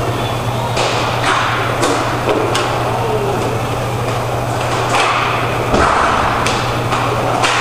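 Roller hockey play: about eight irregular sharp clacks of hockey sticks striking the puck and each other, over the rolling of inline skate wheels on the plastic sport-court floor. A steady low hum runs under it all.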